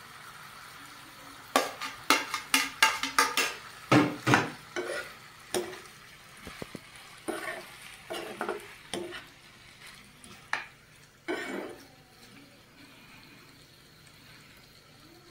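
Long metal slotted spoon scraping and knocking against a black frying pan as potato curry with tomato pieces is stirred, over a low sizzle of frying. The clatter starts about a second and a half in, is busiest over the next few seconds, and thins out to a few knocks before stopping.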